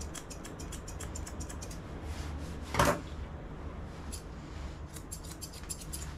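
Grooming scissors snipping through a dog's hair in quick runs of light clicks, with one louder knock just before three seconds in.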